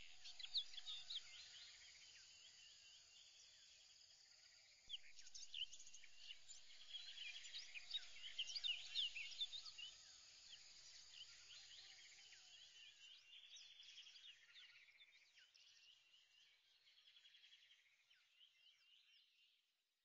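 Faint chorus of many birds chirping in short, quick calls, swelling a few seconds in and fading out toward the end.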